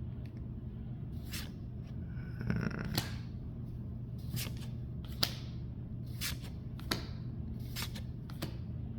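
Pokémon trading cards being flipped and slid through by hand, with about nine short, sharp swishes and snaps spaced roughly half a second to a second apart, over a steady low hum.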